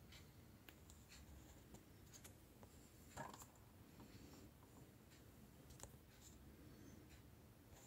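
Near silence: room tone with a few faint scattered clicks and rustles, one slightly more distinct about three seconds in.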